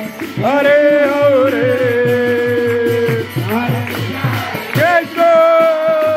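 Kirtan: a voice sings long held notes that slide between pitches, over a harmonium, with a drum beating a quick steady rhythm.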